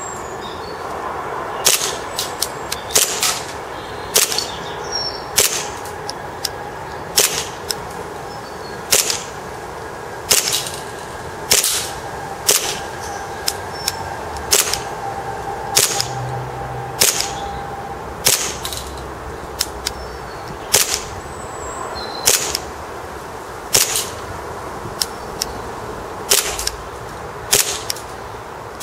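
Tokyo Marui plastic-framed 1911 gas blowback airsoft pistol firing single shots on propane in cold weather, about one shot a second with an occasional quicker pair.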